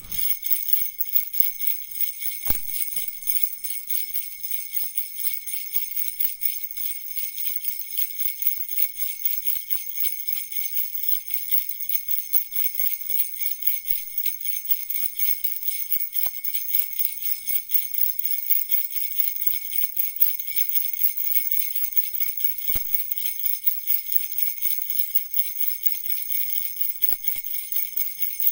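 A small handheld jingle bell bracelet, four metal bells on a red plastic band, shaken steadily and rapidly, jingling on and on.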